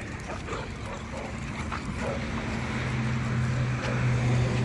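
A steady engine-like hum comes in about two seconds in and holds an even pitch, over faint scuffling and short sounds from dogs at play.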